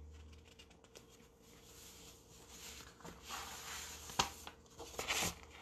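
Faint rustling and handling noise in a small room, with a sharp click about four seconds in.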